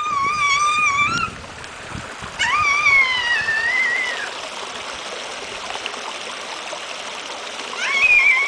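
Worm-style lawn sprinkler spraying water with a steady hiss. Over it, a toddler gives three loud, high-pitched squeals: a long one ending about a second in, another from about two and a half to four seconds, and a short one near the end.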